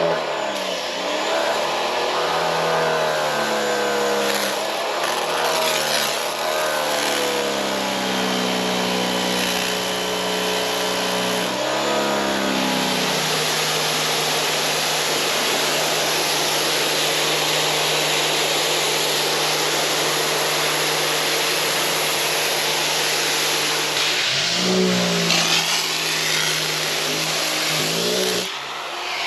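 Gas-engine pressure washer running, its engine pitch dipping and rising several times as the load changes. The hiss of the water spray is strongest through the middle stretch.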